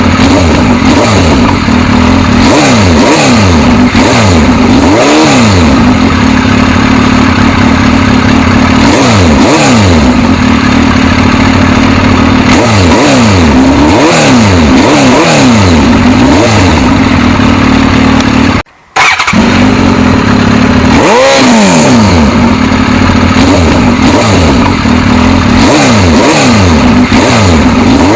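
Suzuki GSX-S1000's inline-four engine being revved over and over, its pitch rising and falling every second or two over a steady underlying tone. There is a brief cut-out about two-thirds of the way through.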